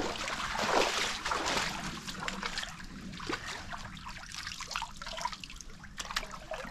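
Creek water sloshing and trickling around a person wading and crouching in the shallows, louder over the first couple of seconds.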